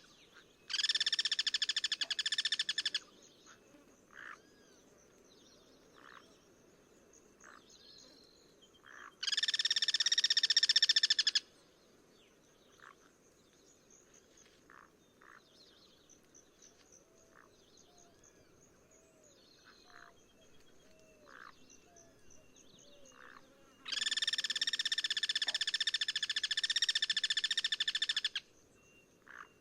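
Guira cuckoo giving three long, harsh rattling calls, each a flat buzzy trill lasting two to four seconds, the last the longest. Between them, a faint steady high insect-like tone and scattered short chirps from other birds.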